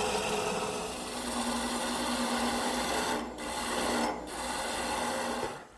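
Wood lathe spinning a bat blank while a turning gouge cuts along it: a steady scraping hiss of shavings over a low hum. The cutting breaks off briefly twice, a little after three and four seconds in, and stops just before the end.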